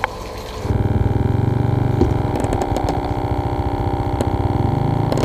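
A motor running steadily with a low, even drone and a fast regular pulse, starting abruptly about a second in.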